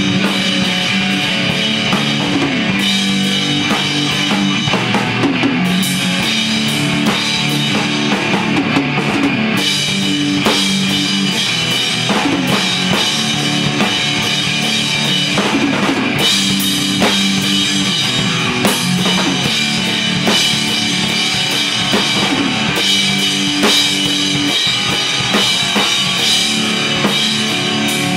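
A drum kit and an electric guitar playing an instrumental jam together, loud and continuous.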